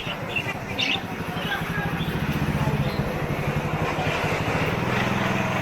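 A motor vehicle's engine running close by, a steady low hum that grows louder from about two seconds in, over street background, with a few bird chirps near the start.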